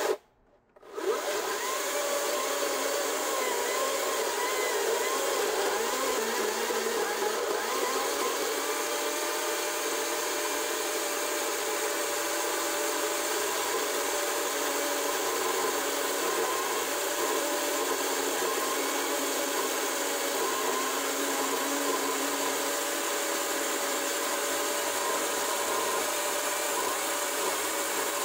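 Greenworks Commercial battery chainsaw with a 36-inch bar and .404 chain cutting through a large log: a steady electric motor whine mixed with the chain chewing wood, its pitch wavering slightly as it labours under heavy load. The big .404 chain is taxing the saw. The sound drops out briefly just after the start.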